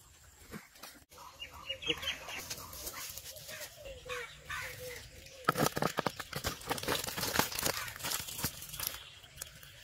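Fish and water sliding out of a hollow banana-stem trap into a plastic basin: a rapid run of wet slaps and splashes from about halfway through. Before that, a few short animal calls.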